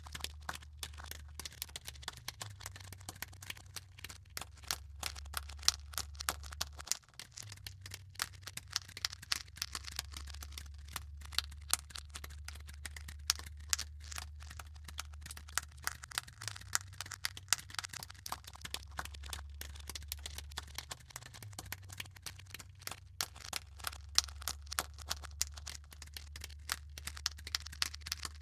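Dense, irregular crackling over a steady low hum, the hum shifting every few seconds and dropping out briefly about seven seconds in.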